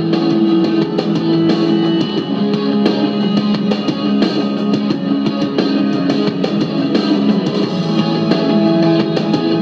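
Music with guitar and a drum beat.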